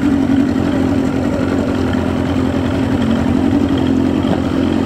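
Small boat's outboard motor running at a steady speed, an even drone that holds without change.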